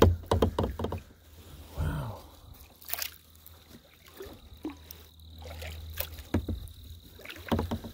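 Kayak paddling on calm water: scattered splashes and drips from the paddle blade, with a few knocks and clicks, most of them in the first second.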